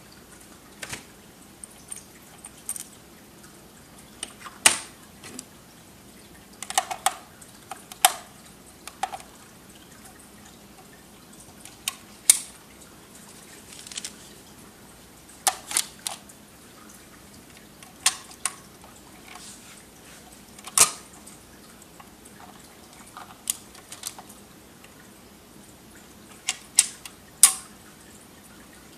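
Scattered, irregular sharp clicks and clacks of a Dual 1019 record changer being handled: its spindle swapped for a 45 rpm adapter spindle and 45 rpm singles loaded onto it.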